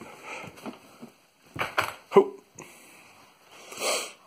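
A Savannah kitten scuffling and rustling in and around a fabric cat tunnel, with a sharp knock about two seconds in and a short rush of noise near the end.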